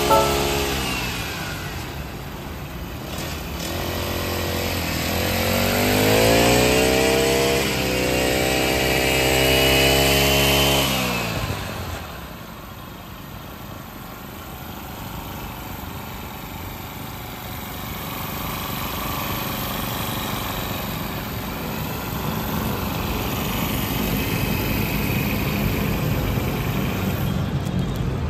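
An engine revs up, rising in pitch, holds high for several seconds and cuts off abruptly about eleven seconds in. After that comes steady street traffic noise.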